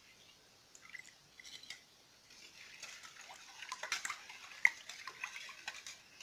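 Slotted spoon stirring salt and sugar into a brine of water and vinegar in a pot to dissolve it: light clinks and scraping against the pot with swishing liquid, sparse at first and busier from about halfway in, with one sharp clink near the end.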